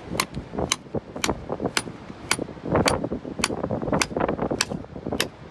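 Hammer striking a steel chisel held against rock, about two blows a second in a steady rhythm, each blow a sharp metallic clink with a brief high ring. The chisel is being driven into the rock to cut out a fossil.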